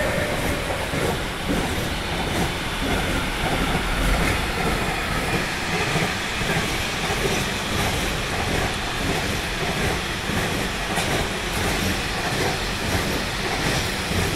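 Long intermodal freight train of semi-trailers on pocket wagons rolling past at speed: a steady rumble of wheels on rail with clickety-clack from the wagons. A steady whine from the passing electric locomotives fades out in the first second.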